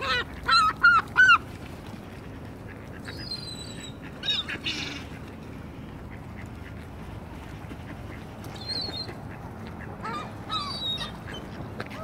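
Water birds calling while being fed: three loud calls in quick succession about half a second in, then fainter calls now and then.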